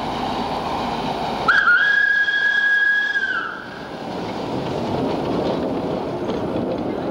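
Steam tram locomotive blowing its whistle once, a single steady tone held for about two seconds, over the steady running noise of the tram.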